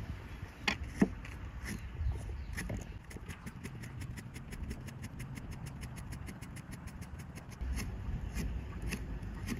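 Kitchen knife slicing herbs and garlic on a thick wooden chopping block: a few separate knocks, then a fast, even run of blade taps on the wood, about six or seven a second, for several seconds, with a few more knocks near the end. A steady low rumble runs underneath.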